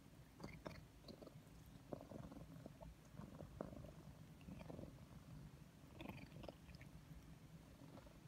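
A domestic cat purring faintly while it is stroked, with soft rustles and light clicks from the handling.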